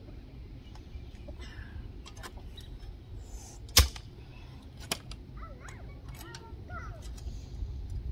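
A few sharp clicks, one much louder about four seconds in, over a low steady rumble, with faint short chirps in the middle.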